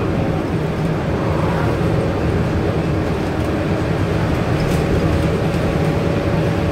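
Scania N230UD double-deck bus running steadily, heard from inside the upper deck: a constant low diesel drone with a steady whine over it.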